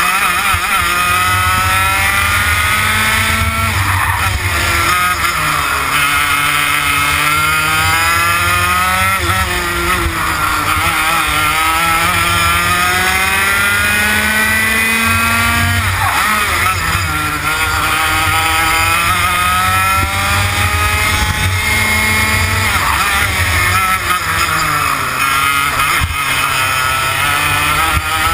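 Two-stroke TKM BT82 Extreme kart engine running at racing speed: its pitch climbs steadily for several seconds as it pulls, then drops quickly under braking into the corners, about four times.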